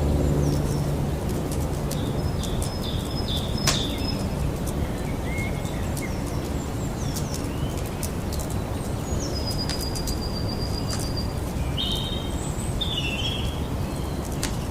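Campfire crackling, with scattered sharp pops, the loudest about four seconds in, over a steady low rumble. Small birds chirp now and then in short high calls.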